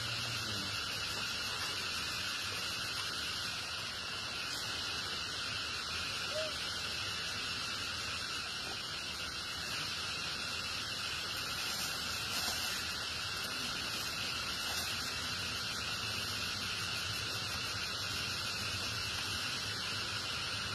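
Steady insect chorus, a dense even buzzing that does not change.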